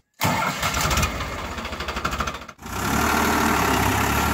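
Farmtrac 60 Supermaxx tractor's diesel engine starting up with a fast pulsing clatter. After a brief break about two and a half seconds in, it runs steadily while pulling a tine cultivator through the soil.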